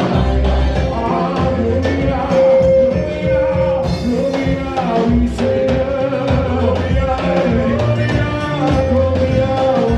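Live praise and worship band music with singing over bass and drums.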